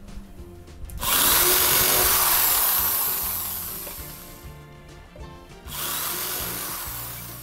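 Corded electric drill boring into pallet wood through the guide hole of a steel square-tube jig, in two runs: the first starts abruptly about a second in and dies away over a few seconds, the second starts near the end.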